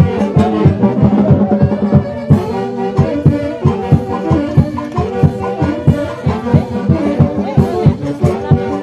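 Brass band music: brass instruments playing a melody over a steady, quick drum beat.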